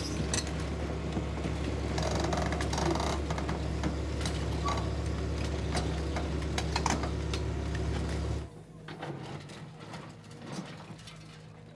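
Tracked excavator's diesel engine running steadily, with knocks and clatter of concrete rubble, until it cuts off suddenly about eight and a half seconds in.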